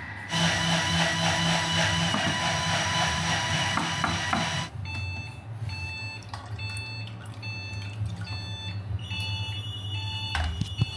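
Thermomix food processor running its blade at high speed with a loud whirr for about four seconds, then stopping abruptly. Short repeated beeps follow, about two a second.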